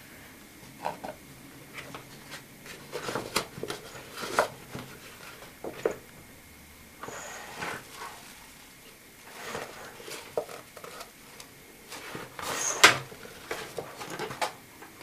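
Handling of a Bundeswehr flecktarn multipurpose bag: its shiny coated lining and fabric flaps rustle and crinkle in irregular bursts as the bag is opened and its pockets spread, with a few sharp knocks, the loudest near the end.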